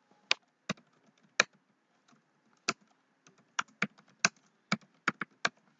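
Typing on a computer keyboard: about a dozen separate keystrokes at an uneven pace as a short line of text is typed.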